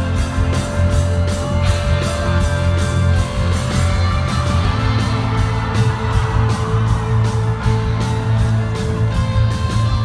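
Live rock band playing an instrumental passage: electric guitar and keyboards over heavy bass and a steady drum beat, with cymbal strokes about four a second.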